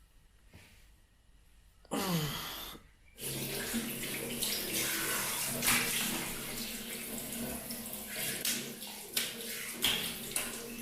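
Running water, starting suddenly about two seconds in with a short falling tone, then a steady rush after a brief break.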